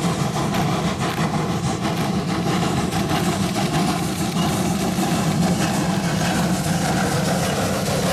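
Steam locomotive working hard at the head of a freight train, its exhaust beating in a fast, steady rhythm as it draws close and passes.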